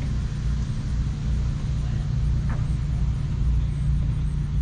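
A steady, low engine rumble that does not change.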